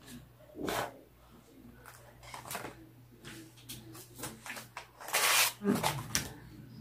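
Laminated plastic pouches being picked up, slid and set down on a table: scattered rustles and light taps, with the loudest swish of plastic about five seconds in.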